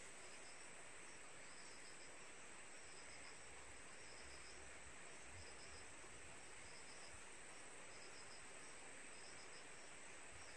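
Faint insect chorus: small groups of quick, cricket-like chirps repeating about once a second over a steady high-pitched insect hum.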